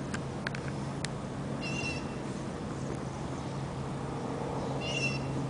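An animal calling twice: short high cries about two seconds in and again near the end, over a steady low hum.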